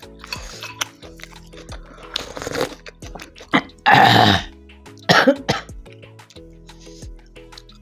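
Background music, with a person coughing loudly twice, about four and five seconds in.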